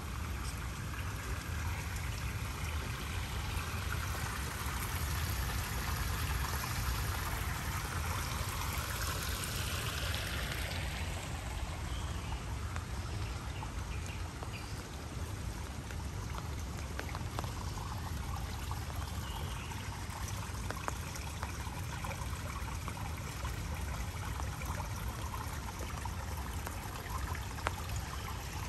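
Running water pouring and trickling, with raindrops dripping after heavy rain. It grows louder for several seconds and fades about ten seconds in, over a steady low rumble.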